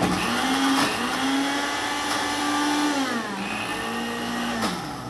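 Electric countertop blender running, grinding garlic, chili and oil into a paste. The motor starts suddenly, slows briefly about three seconds in, picks up again, then winds down and stops near the end.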